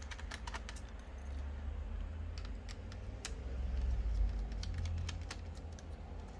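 Scattered light clicks and taps from handling the opened laptop's internal parts, over a low rumble of handling noise.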